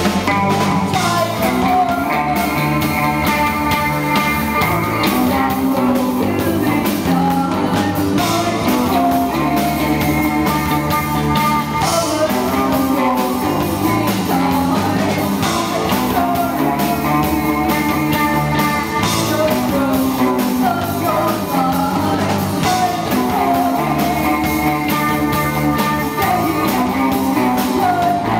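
Live goth rock song played loud by a band with drums, with a woman singing into a handheld microphone.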